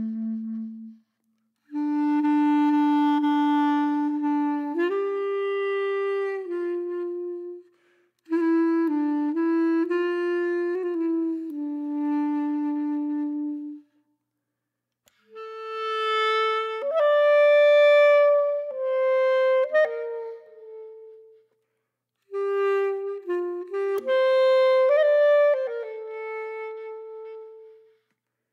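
Background music: a slow solo melody of held notes, played in four phrases with short silent gaps between them.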